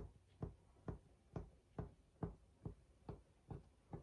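Faint, evenly spaced taps, about two a second, as holes are poked one by one into squares of rolled cracker dough on a countertop.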